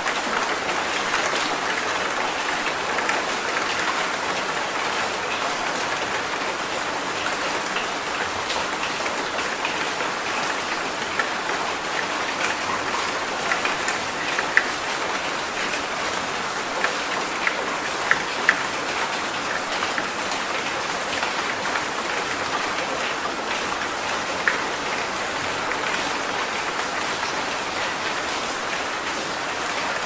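Steady rain falling, an even hiss of many drops, with a few sharper, louder drop impacts standing out now and then.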